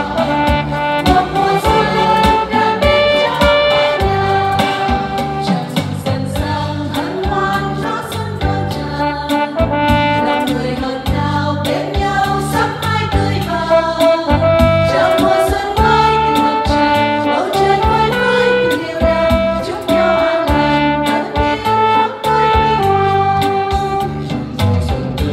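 A small choir of women singing a Vietnamese hymn to electronic keyboard accompaniment, sustained melodic lines over a steady backing.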